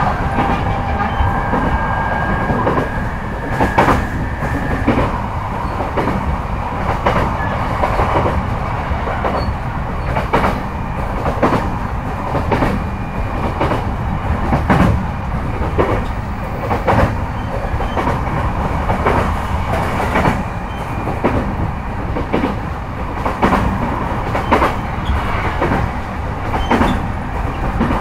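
Running noise inside a JR East E233 series 5000 motor car (MoHa E232-5603) under way: a steady rumble with the wheels clacking over rail joints in regular knocks, often in pairs, about once a second. A faint high whine is heard only in the first few seconds.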